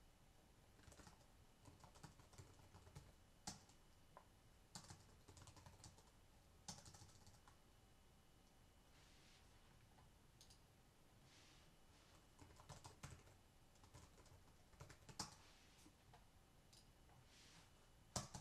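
Faint computer keyboard typing in short, irregular bursts of keystrokes, with a louder click near the end.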